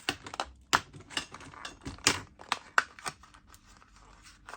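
A plastic product packet being cut open: a run of separate sharp snips and clicks with light rustling of the packaging between them, thinning out toward the end.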